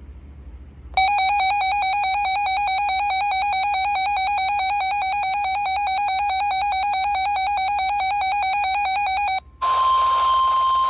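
Emergency Alert System two-tone attention signal, a steady buzzy tone held for about eight seconds. It then cuts to weather radio hiss, and a single steady 1050 Hz NOAA Weather Radio warning alarm tone starts near the end.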